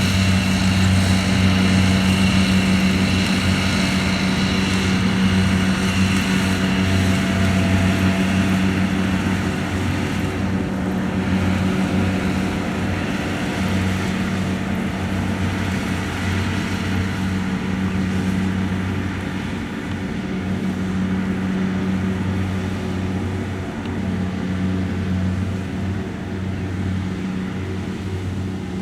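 Kubota DC-70 rice combine harvester's diesel engine running steadily under way, a constant low drone that grows a little quieter over the second half.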